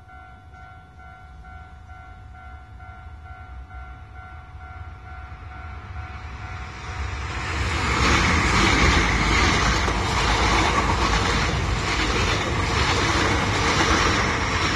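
Level-crossing warning bell ringing in a steady repeating ding. A Hankyu electric train approaches and passes close by at speed, with wheels clattering over the rails. The train grows loud about halfway through and drowns out the bell.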